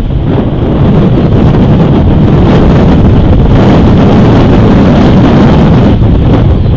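Loud, steady wind buffeting an outdoor camera microphone, a dense low rumble of noise with no breaks.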